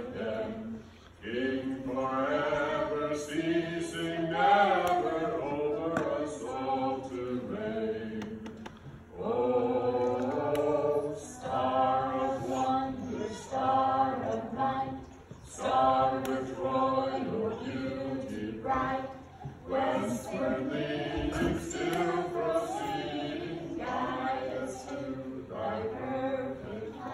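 A children's choir singing a song together in phrases, with short breaks between lines.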